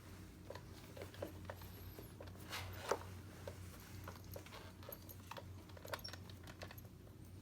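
Light handling noises of a leather strap with metal clasps being fitted to a hard-sided case: scattered small clicks and rustling, with one louder scrape ending in a click about three seconds in. A low steady hum runs underneath.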